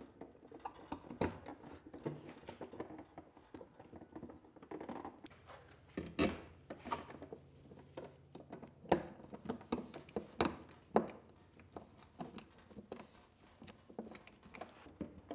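Solid wires and a NEMA L14-30 receptacle being pushed into a metal electrical box, then a hand screwdriver driving the mounting screws: scattered clicks, taps and scrapes, with a few sharper clicks in the middle.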